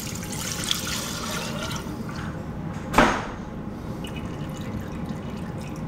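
Used frying oil pouring from a glass bowl into a FryDaddy deep fryer, a steady trickle that tapers off as the bowl drains. About three seconds in there is a single sharp knock.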